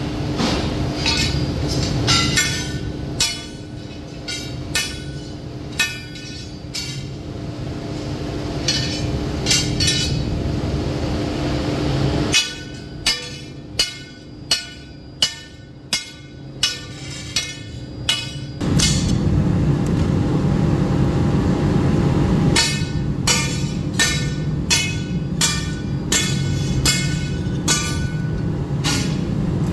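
Hammer blows ringing on steel, about one to two a second, over the steady running of workshop machinery that grows louder about two-thirds of the way through.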